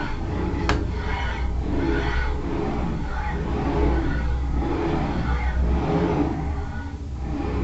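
CNC router running: a steady low hum with motor sound that swells and fades every second or so as the machine moves.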